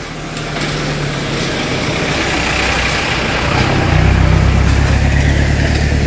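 A light utility truck's engine approaching and passing close on a dirt road, a steady low hum over tyre noise, getting clearly louder about three and a half seconds in.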